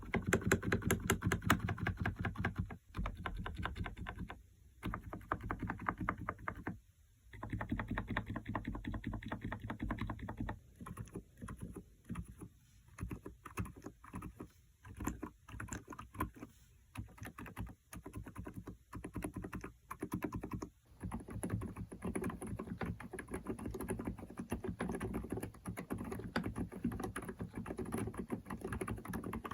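Typing on an Emstone GV8 mechanical keyboard with silent 'milky' switches (38 g), a soft, muted clatter of rapid keystrokes. It comes in fast runs broken by short pauses, turns sparser and more halting around the middle, then settles into steady fast typing for the last third.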